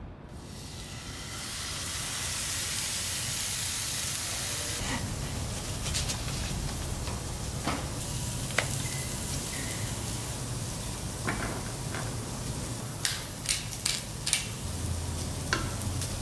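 Food frying in a pan: a steady sizzle that comes up quickly at the start and holds, with scattered sharp clicks and taps of a utensil against the pan from about five seconds in, several in quick succession near the end.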